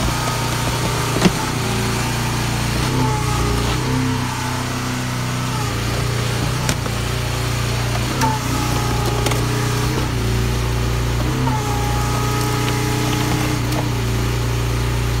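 Engine of a hydraulic power pack running steadily to drive a trenchless sewer pipe-pulling rig, a constant hum with several fixed tones. Brief high squeals come and go over it.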